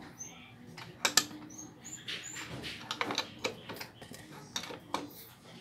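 Irregular metallic clicks and clinks of a wrench on the crankshaft bolt of a Honda XRM125 engine as the crankshaft is turned by hand toward top dead center for a valve-clearance check, with a few short high squeaks in the first half.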